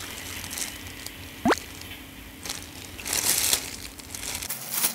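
Pork belly being mixed with soy sauce and garlic in a bowl: a series of short noisy rustles, the biggest about three seconds in. A brief rising swoop about one and a half seconds in.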